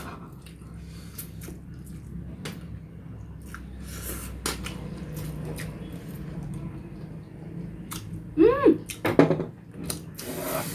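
Scattered light clicks and taps of small objects being handled, over a low steady hum. A short sliding vocal sound comes about eight and a half seconds in, and louder knocks follow near the end.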